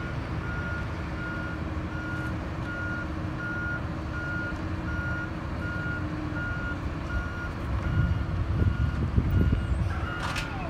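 Backup alarm of heavy construction equipment beeping steadily in evenly spaced short beeps, over the rumble of a heavy engine that grows louder near the end. A sharp knock comes just before the end.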